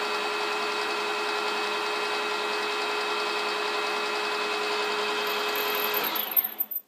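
Combination mill running with its end mill cutting a slot in a mild steel spindle: a steady hum with a high whine over the cutting noise. About six seconds in the sound turns uneven and then cuts off suddenly.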